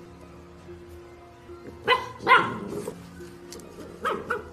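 Pit bull puppy barking: two short barks about two seconds in and two softer ones near the end, over background music with steady held notes.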